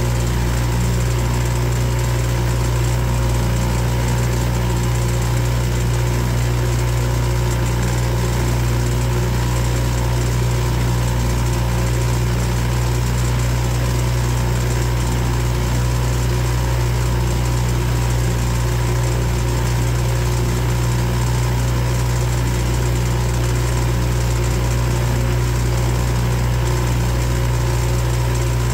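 Boat motor running steadily at an unchanging speed, a constant low drone.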